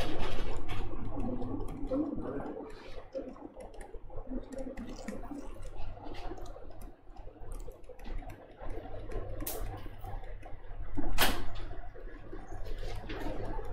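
Steady low electrical hum under irregular rustling and small clicks. One sharp knock about eleven seconds in is the loudest sound.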